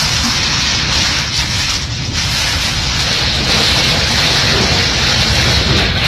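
Heavy rain and storm wind battering a moving vehicle, heard from inside the cab: a loud, steady rushing noise with a deep rumble underneath.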